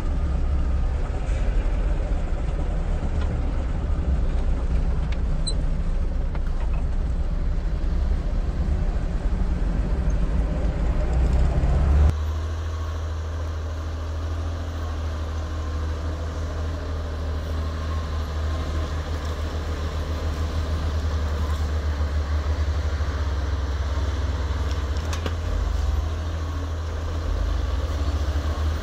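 Steady low motor-vehicle rumble, with an abrupt change about twelve seconds in to a slightly quieter, different rumble.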